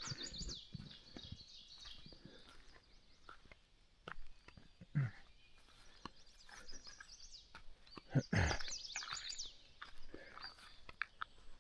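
Songbirds chirping in quick runs of high, falling notes, twice, with scattered light clicks and a couple of dull thumps in between.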